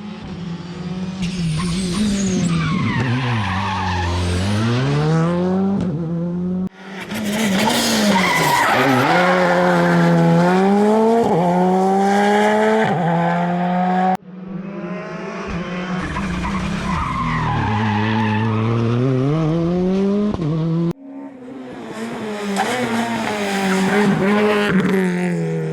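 Rally car engines working hard on a tarmac stage, one car per clip in four short clips: the engine note drops as the car slows for a corner, then climbs again through the gears as it accelerates away.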